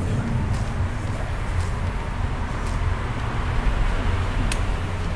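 Restaurant background noise: a steady low hum with a few faint light clicks about a second apart.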